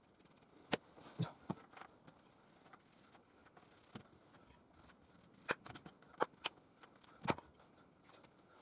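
A scattering of sharp clicks and light knocks, about nine in all at uneven intervals, as small objects are handled and set down.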